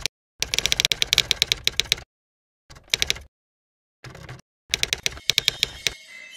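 Typing sound effect: quick runs of sharp keystroke clicks, about nine a second, broken by several short pauses.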